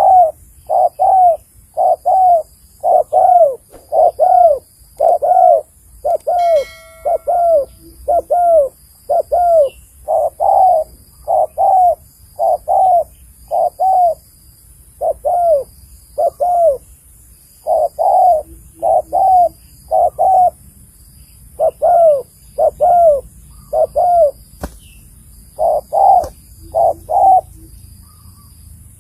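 Spotted dove cooing: a long run of repeated low, arched coos in phrases broken by short pauses. Faint high peeps repeat evenly in the background.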